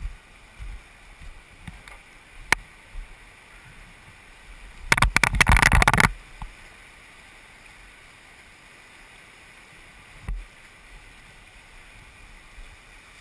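Steady rush of a river, with a loud spell of crackling buffeting on a helmet camera's microphone for about a second, some five seconds in, as a throw rope is thrown across the current. A few single sharp handling clicks.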